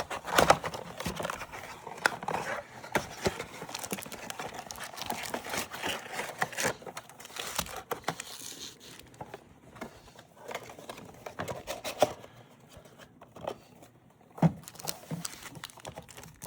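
Plastic wrapping and packaging of a 2025 Score Football trading-card box being torn open and handled: irregular crinkling and tearing, with a few sharp snaps.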